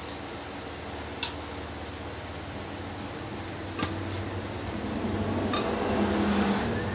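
Light clicks and knocks as a handheld gas torch on a yellow fuel cylinder is handled, then a click about five and a half seconds in and the torch flame hissing, growing louder toward the end. A steady low hum runs underneath.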